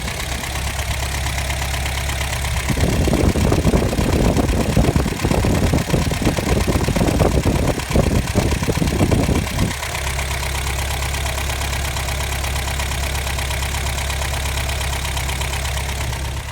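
Toyota 22RE four-cylinder engine idling steadily, run to show a ticking/knocking noise that persists although the timing chain, tensioner and guides have been replaced. About three seconds in it turns louder and rough and irregular for some seven seconds, then settles back to the steady idle.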